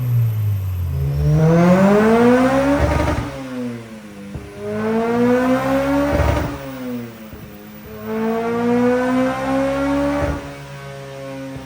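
Honda Civic EP3 Type R's K20 four-cylinder engine accelerating hard at high revs, its pitch climbing steeply and dropping at each of three upshifts about three seconds apart, then holding steadier near the end.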